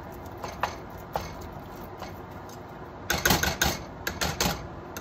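Handheld meat chopper jabbing ground turkey against a nonstick skillet: a few scattered knocks, then from about three seconds in a quick run of strikes, about five a second.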